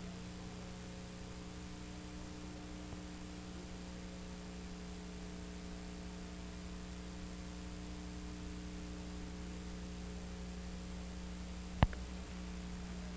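Steady electrical mains hum with a background hiss on the recording. A single sharp click comes near the end.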